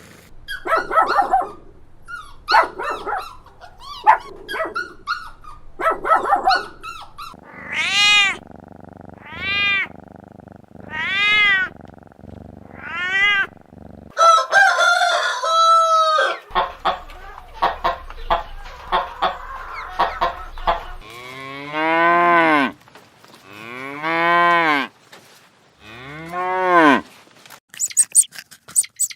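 A run of farm animal calls: short rapid calls in the first seconds, then four drawn-out rising-and-falling calls, and near the end three long, low cow moos.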